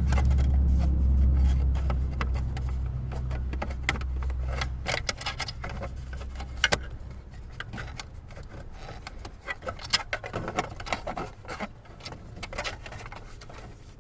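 Scattered clicks, light knocks and rattles of hands working plastic steering-column trim and small parts loose, over a low hum that fades out about five seconds in.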